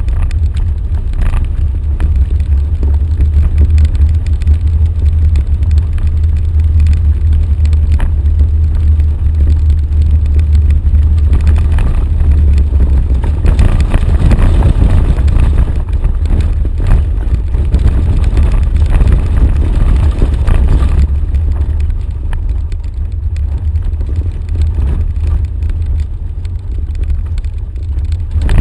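Off-road vehicle driving on a rough dirt track: a steady low rumble, with scattered knocks and rattles as it goes over bumps.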